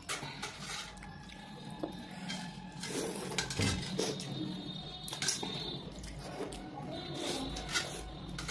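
Two people slurping and chewing soupy Maggi curry noodles, with wet sucking sounds and chopsticks clicking and scraping against steel plates, over a steady low hum.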